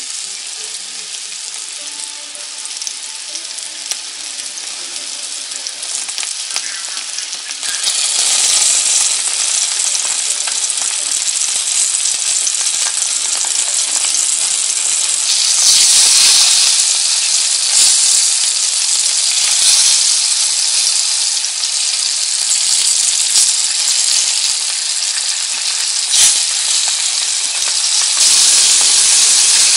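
Flour-dredged pond smelt (malorotka) frying in hot oil in a ceramic-coated pan: a steady sizzle that grows louder about eight seconds in.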